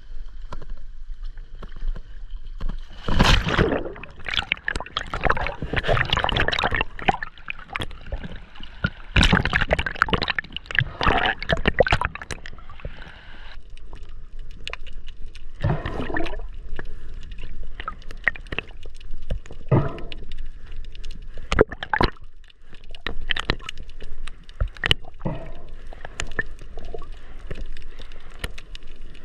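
Water sloshing and gurgling, with irregular splashes and sharp clicks.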